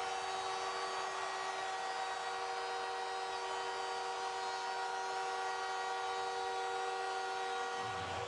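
Montreal Canadiens' arena goal horn sounding a steady, unbroken chord over crowd noise, celebrating a goal just scored.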